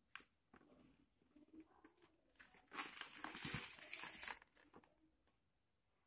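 Cardboard box being handled and turned in the hands: faint scattered taps and rustles, with a louder scraping rustle lasting about a second and a half around the middle.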